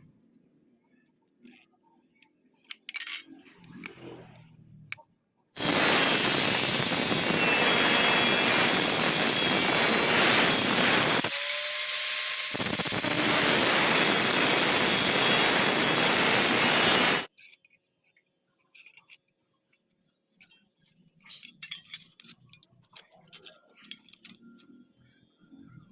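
Electric arc welding on angle iron: a steady harsh crackling hiss that starts abruptly several seconds in and stops abruptly near the middle, with a short break in its lower part partway through. Light metal clinks come before and after it.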